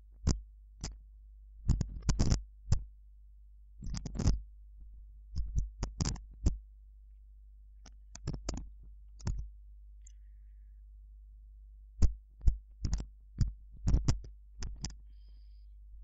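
Computer keyboard keys clicking as text is typed, in short irregular runs of keystrokes with pauses of a second or more between them, over a faint steady low hum.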